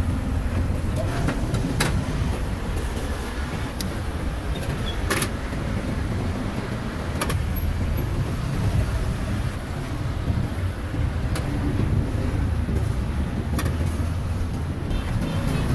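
Steady low rumble of street traffic, with a handful of sharp clicks scattered through it.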